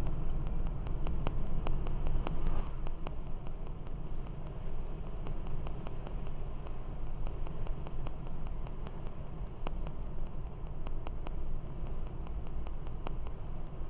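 Car driving along an open road, heard from inside the cabin: a steady low rumble of engine and tyres, with a faint rapid ticking about four times a second.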